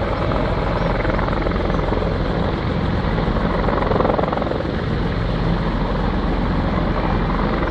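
Firefighting helicopter running steadily, its rotor blades giving a fast, even chop.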